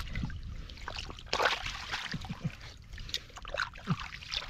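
Shallow muddy water splashing and sloshing in irregular bursts as hands grope through it and a catfish thrashes at the surface.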